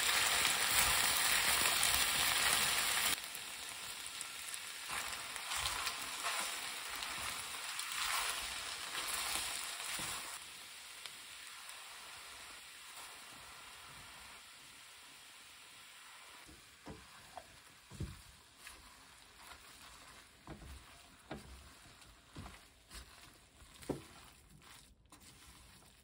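Sundae stir-fry with cabbage and glass noodles sizzling in a frying pan as a spatula stirs it. The sizzle is loud at first, drops sharply about three seconds in and fades to a faint hiss as the dish finishes on residual heat, with the spatula knocking and scraping against the pan in the second half.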